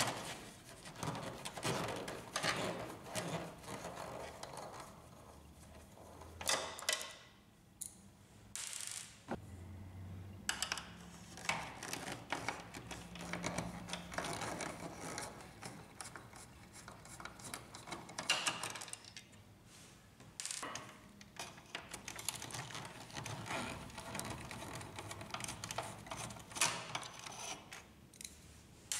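Faint, irregular clicks, taps and scrapes of a screwdriver and plastic parts as screws are taken out of a Canon inkjet printer's upper cover and its plastic housing is handled.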